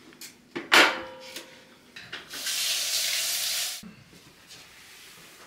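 A Kenwood stand mixer being opened after kneading dough: a sharp metallic clink with a brief ring as the head is released, then a steady hiss for about a second and a half, ending in a soft knock.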